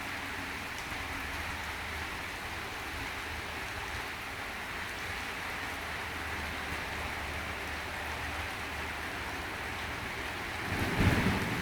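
Steady heavy rain falling. Near the end a sudden loud clap of thunder breaks in, lasting about a second.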